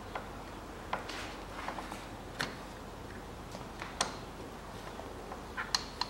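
Scattered small clicks and faint rustles of hands fitting a plug onto a power-steering fluid reservoir to stop the fluid running out.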